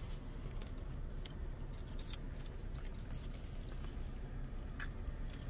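Steady low hum inside a car, with a few faint clicks and crinkles from people eating chicken sandwiches.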